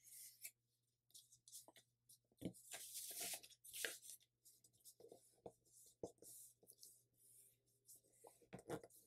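Sheet of printer paper crackling and rustling faintly under the fingers as a crease is reversed and a pocket pressed flat. Short, scattered crinkles, a little denser about two and a half to four seconds in.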